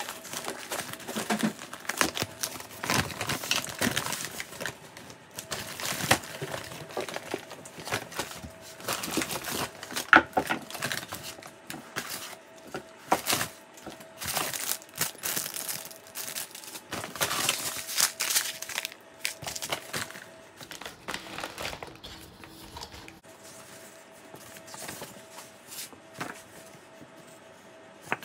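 Brown paper bag being unrolled and rummaged through, with plastic food packets taken out: irregular paper rustling and crinkling, the sharpest crackle about ten seconds in.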